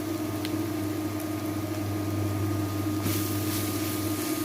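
Onion and masala paste frying in a pan with a low sizzle, under a steady mechanical hum; the sizzle grows brighter about three seconds in.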